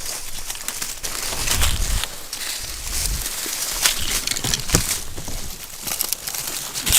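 Irregular rustling and crackling, with a few low thumps about one and a half and three seconds in.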